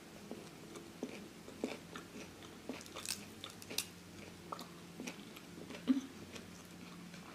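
Close mouth sounds of someone chewing raw vegetables, with scattered faint crunches and small clicks.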